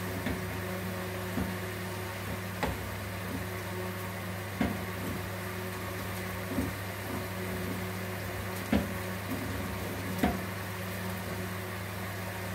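A steady low electrical hum from a kitchen appliance. Over it come light, irregular knocks about once a second, a cooking utensil tapping against a pot.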